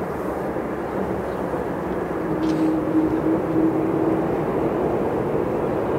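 Airbus A330-200 airliner with General Electric CF6-80E1 turbofans rolling out on the runway just after touchdown: a steady rush of jet engine noise. It swells a little about two seconds in, with a steady hum that holds for a couple of seconds.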